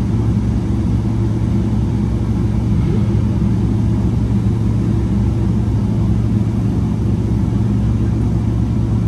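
Boeing 777-300ER's GE90 jet engines and airframe heard from inside the cabin: a steady, loud low rumble with an even hum underneath.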